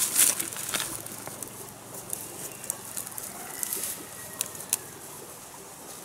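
Dry leaves and twigs rustling and crackling as they are handled on the ground, with a few sharp snaps, the busiest handling in the first half-second and again a little before the five-second mark.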